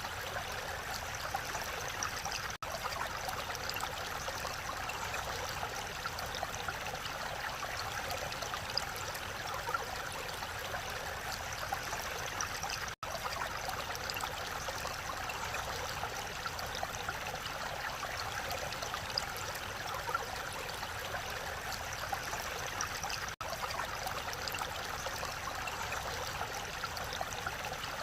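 Mountain valley stream running steadily, a continuous rush of water with no let-up, broken only by three momentary dropouts.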